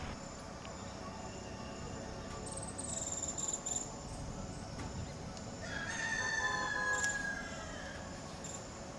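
Outdoor woodland ambience: a rooster crows once, about six seconds in, lasting a second and a half. Before it comes a short high bird call, over a steady background of insects.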